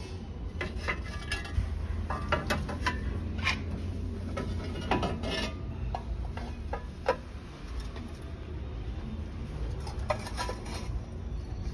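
Small clay cazuelas clinking and knocking against one another as they are lifted from a shelf and set into a plastic shopping basket, in several short clusters of clinks over a low steady hum.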